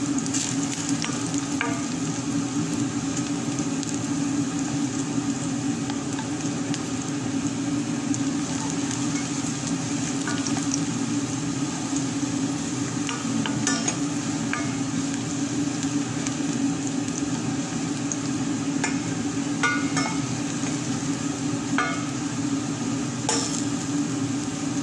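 Chopped garlic sizzling in olive oil in a stainless steel pot as it is sautéed, stirred with a spatula, with a few short clicks of the utensil against the pot.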